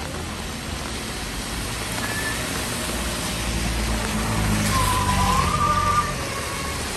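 Cars driving past on a rain-soaked road: tyre hiss on wet tarmac and engine noise swell to a peak about five seconds in as one passes close, then ease off. Heavy rain hisses underneath throughout, with a short squeal near the peak.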